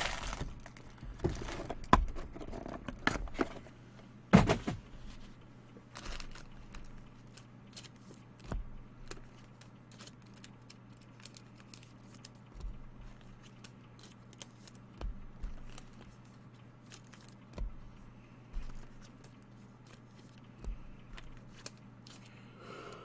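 Baseball trading cards and their packaging being handled: rustling, light tearing and crinkling of wrappers, with cards clicking and sliding. The handling is busiest in the first few seconds and then turns sparse, over a steady low hum.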